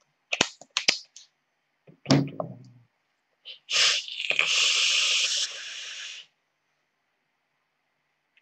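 Several sharp clicks and a knock as an e-cigarette's atomizer is closed and handled, then a long hiss of air drawn through the dripping atomizer as the vape is inhaled. The hiss lasts about two and a half seconds, strong at first and then quieter.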